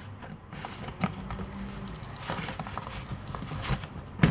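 Hands kneading and mixing a mass of slime that holds polystyrene foam beads: irregular sticky clicks, pops and crackles.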